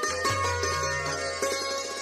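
Instrumental background music: plucked-string notes over a low sustained bass.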